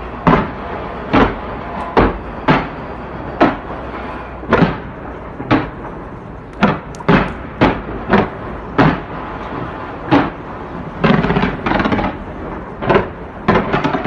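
Fireworks shells bursting in a quick, uneven series of sharp bangs, each with a short echoing tail, about one to two a second. A denser flurry of bangs comes about three-quarters of the way through.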